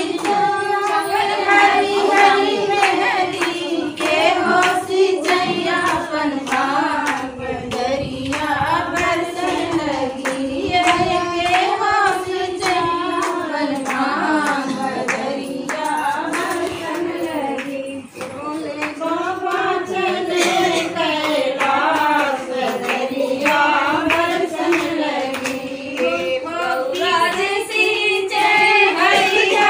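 Women singing a rustic Hindi folk song (dehati geet) together, accompanied by steady rhythmic hand clapping that keeps the beat.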